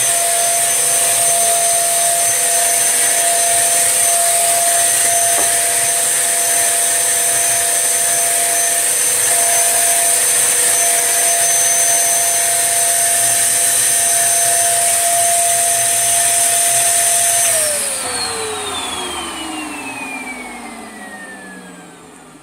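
Tesco own-brand 1800-watt bagless upright vacuum cleaner running steadily with a high whine. About seventeen seconds in it is switched off, and the motor winds down with a falling whine that fades away.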